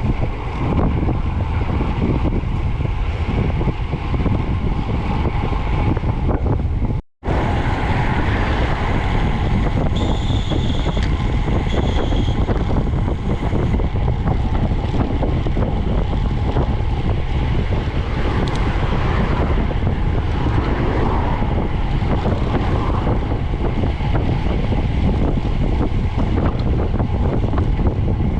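Wind buffeting a camera microphone on a moving bicycle, a steady low rumble that cuts out for an instant about seven seconds in. A faint high tone sounds briefly around ten to twelve seconds in.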